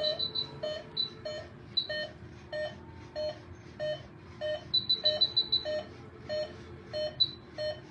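Veterinary anaesthesia monitor beeping with each heartbeat of the anaesthetised wolf: even, pitched beeps about one and a half a second. Two short runs of rapid, higher beeps come right at the start and about five seconds in.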